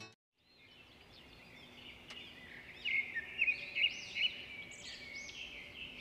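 Birds chirping: many short, quick calls that fade in about half a second in and grow louder and busier from about three seconds in.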